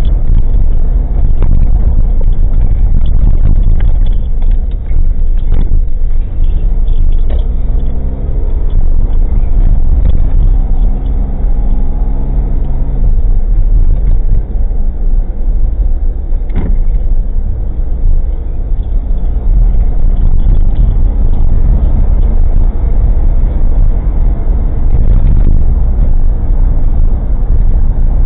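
Engine and road noise inside an old Suzuki Jimny kei car, heard through a cheap dashcam's microphone: a loud, steady low rumble with light rattles and clicks from loose parts, and one sharper knock about halfway through.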